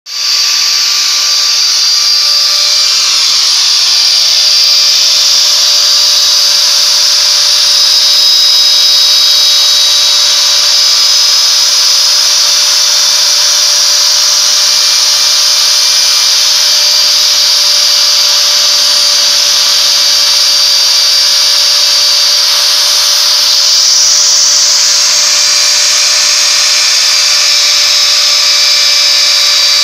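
CNC router spindle running at high speed as it engraves a house-number plate: a loud, steady whine with cutting noise, several tones held throughout. The tone shifts slightly higher about three-quarters of the way through.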